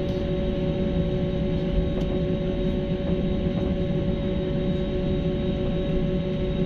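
Airbus A320-family jet airliner heard from inside the cabin over the wing: the engines running steadily while it taxis, a steady two-tone hum over a low rumble.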